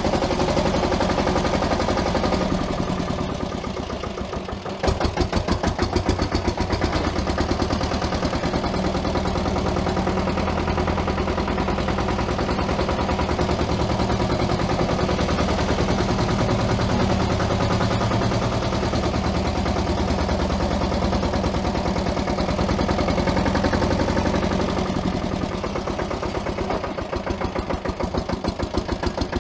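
Pasquali 945 garden tractor's diesel engine running under way, a fast even chugging of firing pulses. It eases off about three seconds in, then comes back up sharply about five seconds in and runs steadily on.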